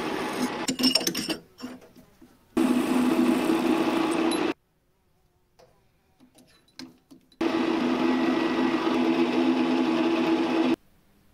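Small metal lathe running with a steady hum, turning and then drilling a small metal part. It runs in three stretches that start and stop abruptly. In the quiet gaps between them there are a few light clicks.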